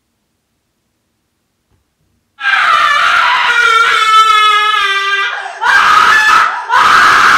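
A man screaming in fright, very loud: one long, wavering scream starting about two and a half seconds in, then three shorter screams in quick succession.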